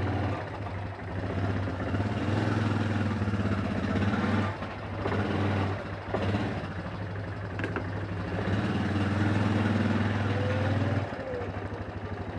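Yamaha Grizzly 350 ATV engine running at low speed while it is maneuvered in reverse, its note dropping briefly a few times as the throttle is eased off.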